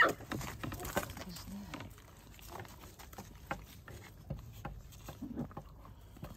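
Puppies being stroked and shifting about on a plastic tarp over dirt: soft rustling, scuffs and small scattered clicks. A brief high squeak comes right at the start, and a few faint low grunts follow.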